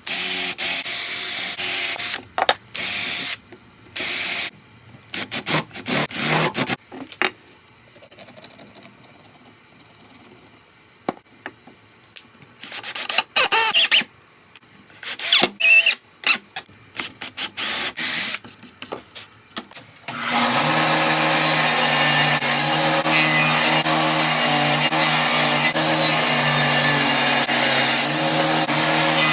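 Power tool run in short bursts several times, then running steadily from about twenty seconds in.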